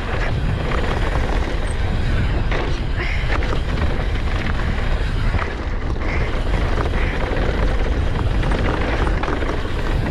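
Wind buffeting the action camera's microphone as a mountain bike rides fast down a dirt trail, a steady low rumble, with tyre noise and occasional clattering knocks from the bike over bumps.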